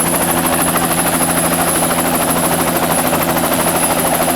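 Helicopter running steadily, its rotor giving a fast, even beat over a low engine hum and a thin high whine.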